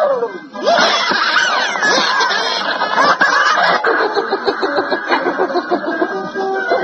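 A tumult of overlapping voices cackling, laughing and shrieking, the sound of a comic skit of hell.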